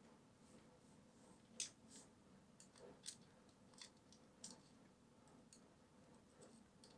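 Faint, scattered small clicks and ticks, about eight of them a few tenths of a second to a second apart, from small metal pistol parts and a screwdriver being handled while the slide is screwed back together.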